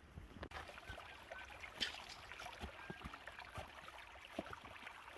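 Small brook babbling and trickling, faint and steady, starting about half a second in, with scattered footsteps on the trail.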